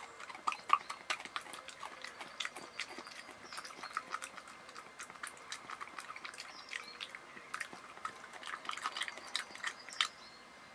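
European badger licking and chewing a spread off a crispbread held in a hand: irregular quick wet smacks and clicks of its tongue and jaws, several a second.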